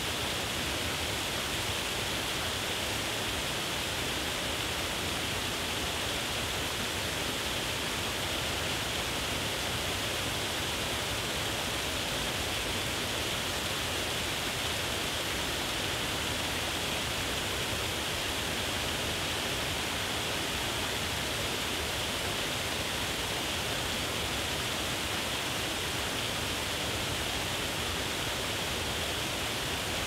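Waterfall pouring over a rock ledge into a pool: a steady, unbroken rush of falling water.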